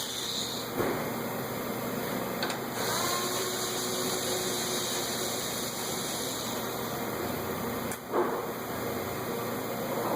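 Steady background hiss with a few light clicks and knocks from car parts being handled during headlamp assembly removal.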